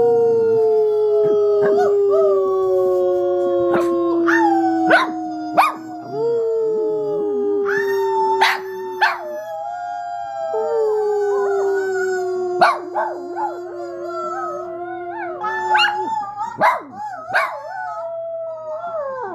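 Small dog howling: long drawn-out howls that slide slowly down in pitch, with short sharp yips between them, breaking into shorter wavering howls near the end.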